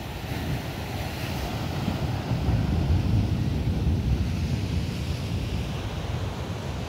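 Sea waves breaking and washing over a rocky shore, with wind buffeting the microphone in a low rumble that swells loudest midway and then eases.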